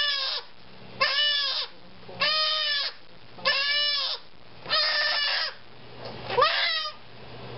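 Goat kid bleating loudly over and over, in distress as a hot disbudding iron burns down its horn bud: about six calls, each about half a second long, coming a little over one a second.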